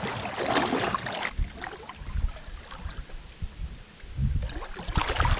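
Water sloshing and splashing around a kayak, with wind buffeting the microphone and a few light knocks.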